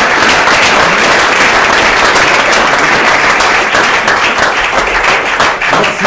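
Theatre audience applauding in a dense, steady wave of clapping that thins into more separate claps near the end.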